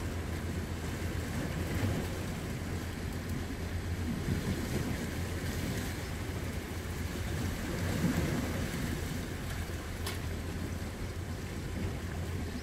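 Steady wind rumbling on the microphone over small waves washing against shore rocks.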